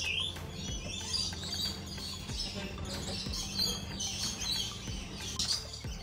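A flock of birds chirping and calling at once, many short overlapping high chirps, loud and noisy.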